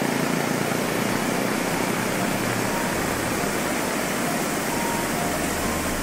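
Steady rushing of a waterfall's white water cascading over rocks.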